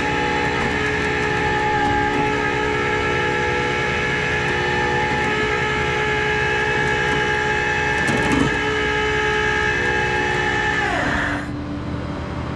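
Tow truck's engine and hydraulics running under load with a steady multi-tone whine, which glides down in pitch and cuts out about eleven seconds in.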